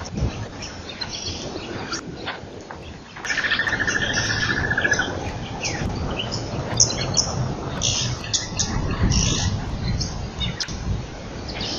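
Wild birds chirping and calling in short high notes, with a rapid buzzing trill from about three to five seconds in, over a low rumble.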